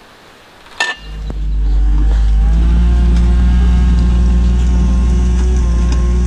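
A motor starts with a click about a second in, spins up over about a second, then runs loud and steady with a deep drone.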